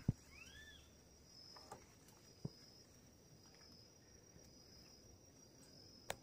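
Faint steady high-pitched trill of insects. About half a second in, a bird gives two short arched whistles, and there are a few faint clicks.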